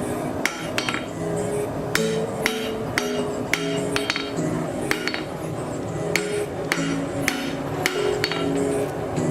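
Blacksmith's hammer striking mild steel on an anvil while forging, about two blows a second, each a sharp ringing clink.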